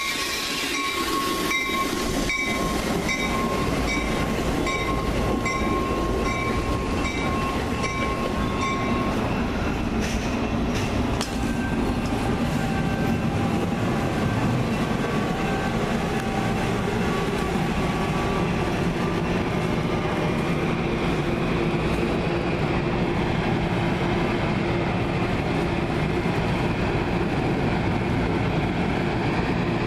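Metra commuter train of bi-level gallery cars coming to a stop at the platform. For the first nine seconds or so a bell rings in regular strokes, about one and a half a second, over a thin steady squeal. After that the standing train gives a steady mechanical rumble, with a low hum that grows in the second half.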